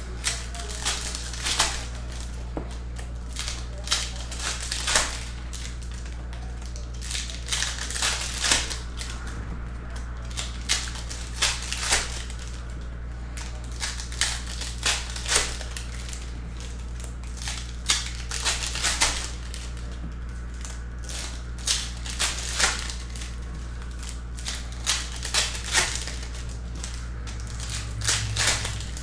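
Foil wrappers of 2021 Skybox Metal Universe Champions trading-card packs crinkling and tearing as they are ripped open by hand, in short crackling bursts about once a second, over a steady low hum.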